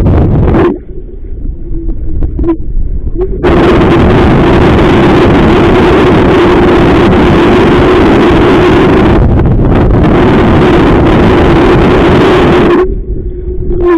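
Strong wind buffeting the microphone, very loud and gusty, with brief lulls about a second in and near the end. A steady hum runs underneath.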